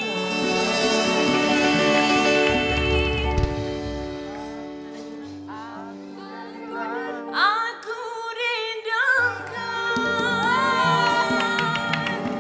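A woman singing into a handheld microphone over backing music, holding long wavering notes, with short pauses between phrases.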